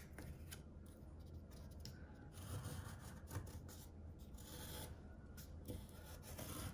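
Faint scratching of a pencil tracing around the edge of a cardboard oval template on paper, with a few light taps and rustles as the template is placed.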